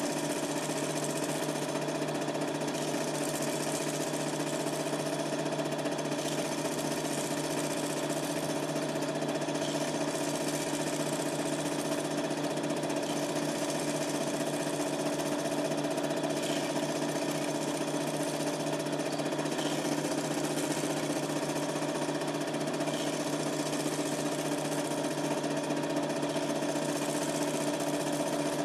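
Super 8 film projector running: a steady mechanical hum with several even tones under a constant hiss.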